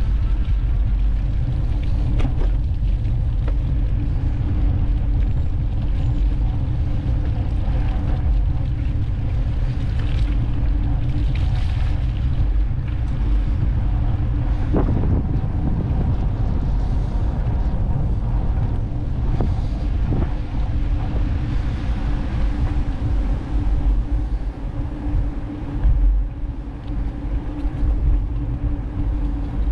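Wind buffeting a GoPro HERO 12 Black's microphone while riding a bicycle: a loud, steady rumble, with a faint steady hum underneath. The rumble turns gustier near the end.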